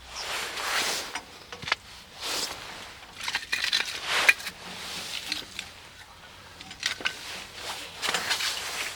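Irregular crunching and rustling, a few tenths of a second to a second each, with a few sharp clicks in between.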